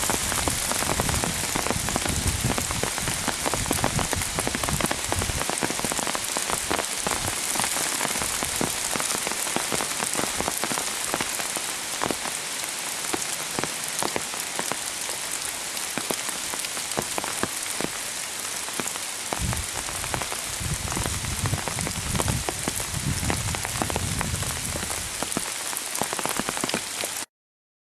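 Heavy rain pouring down, a dense steady hiss with many sharp close drop impacts, and dull low rumbles now and then. It cuts off suddenly near the end.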